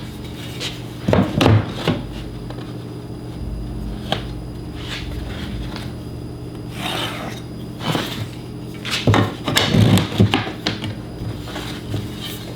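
Pieces of scrap wood handled on a workbench: scattered knocks and clatters as they are picked up and set down, over a steady low hum.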